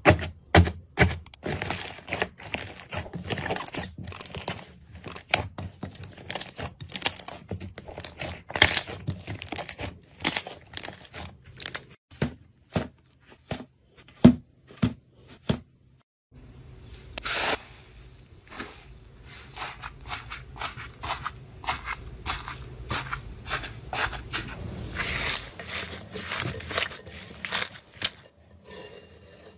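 Slime being pressed and squeezed by hand, giving dense, irregular crackling and popping clicks. It breaks off briefly about halfway, then resumes over a faint low hum.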